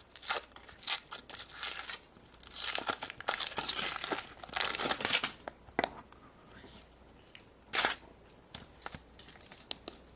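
Plastic wrapping of a toy surprise being crinkled and torn open by hand, in irregular stretches, with a couple of sharp clicks later on.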